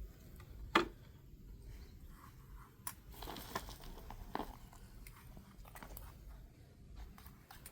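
Scattered clicks and crunchy handling noises, with a sharp knock about a second in and a cluster of crackling, crunching sounds a little after the middle.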